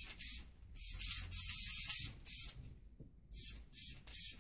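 Aerosol spray can hissing in short bursts. There is a longer spray about a second in, a brief pause, then several quick puffs near the end.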